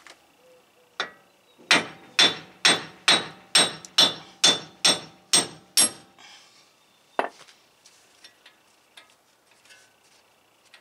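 Sledge hammer striking a steel wheel stud to drive it out of a 2005 Ford Ranger's wheel hub. One light tap, then about ten ringing metal-on-metal blows, roughly two a second, that stop about six seconds in. A single knock follows about a second later.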